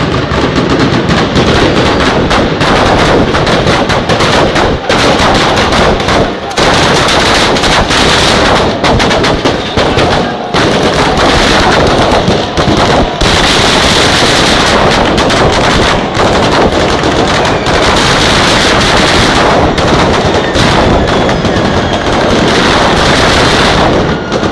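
A street batteria of firecracker chains bursting in a fast, unbroken crackle of sharp bangs, like machine-gun fire, with only a few brief breaks.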